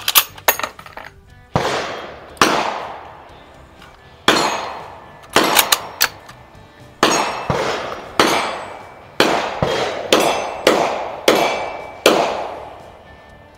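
A string of about sixteen gunshots, irregularly spaced one to two seconds apart and sometimes in quick pairs, each echoing for about a second. That is too fast for a single bolt-action rifle, so most of the shots are other shooters firing on nearby ranges.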